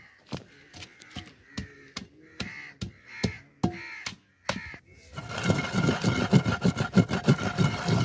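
Long wooden pestle pounding green chillies, garlic, ginger, mint and coriander in a mortar: dull thuds about three a second, with crows cawing. About five seconds in the pounding turns louder and quicker as the wet green paste is ground.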